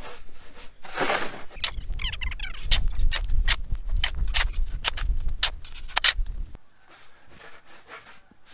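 Plastic snow shovel scraping and knocking along a snow-covered sidewalk, many sharp strokes in quick succession with some squeaks. About two-thirds in it drops to quieter shovelling of deep snow.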